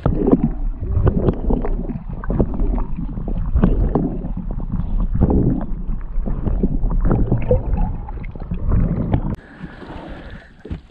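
Lake water sloshing and gurgling around a camera held at and under the surface, with hands and a lake trout moving in the water beside it. The sound is muffled and irregular, and it falls away sharply about nine seconds in.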